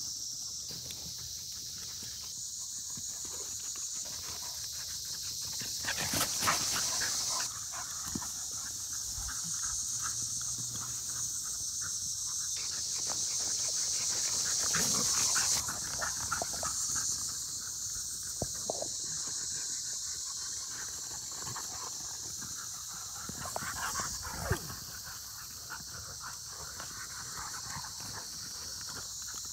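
Dogs at rough play, chasing and wrestling on grass: a 10-week-old Belgian Malinois–Dutch Shepherd cross puppy with older dogs. Their play noises rise in a few louder moments.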